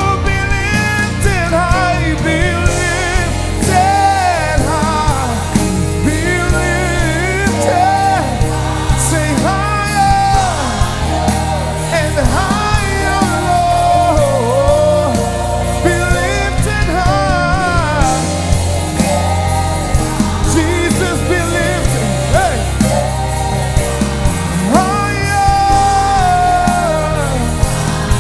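A live worship band plays over a steady drum beat and bass, while a sliding, wavering melody line, likely wordless vocal runs, carries on above it.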